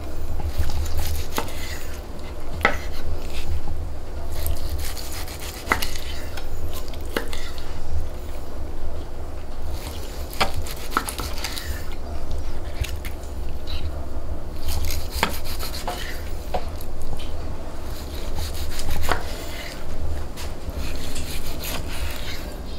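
A knife slicing through a grilled steak on a wooden cutting board: sharp clicks and crunches, one every second or two, as the blade cuts the seared crust and meets the board. A steady low rumble runs underneath.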